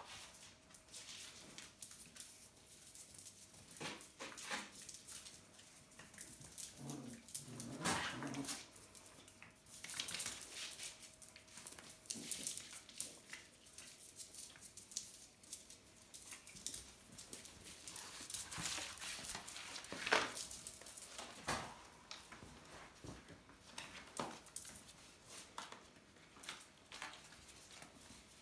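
Puppies play-fighting with a cat: scuffling paws and claws on a cork floor and paper being pushed about, with a few short puppy sounds about eight seconds in.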